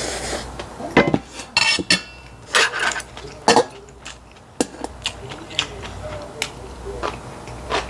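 Metal utensils clinking and scraping against a stainless steel bowl as bibimbap is mixed and scooped up, in a string of sharp separate clicks.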